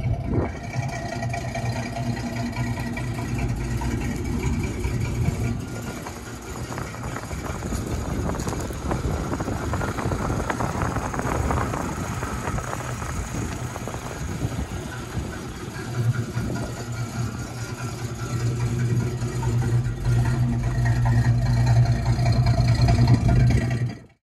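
1965 Ford Mustang's rebuilt 250 cubic-inch inline-six idling steadily through its dual exhaust. It gets louder for the last several seconds, then cuts off suddenly.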